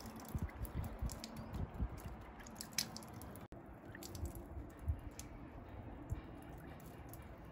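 Water dripping and trickling through the small drain holes of a maple cutting board, landing on wood below as irregular ticks and patters.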